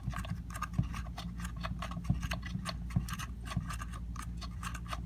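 Hand-work noise on a string trimmer's spark plug area: a dense run of small clicks, ticks and scratches as parts are handled, over a steady low hum.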